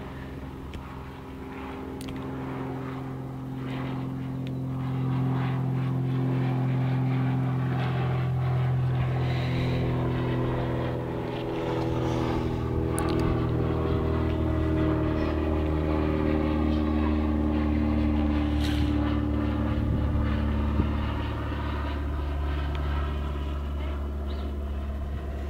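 A steady engine drone, out of sight, that grows louder over the first few seconds and then holds, its pitch slowly shifting.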